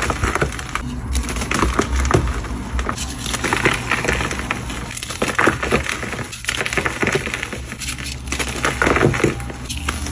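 Gritty crunching and scraping, thick with small crackles, swelling and easing in uneven strokes.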